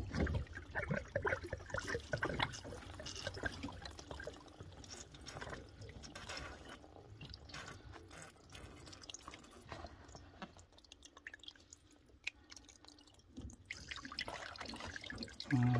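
Water dripping and trickling from the opened pipe joints at a central-heating three-port valve, with small knocks of the brass fittings being handled. It is residual heating-system water still draining out of the pipework.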